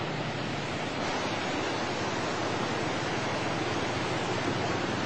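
Tsunami surf breaking on the beach: a steady, unbroken rush of crashing waves and churning water.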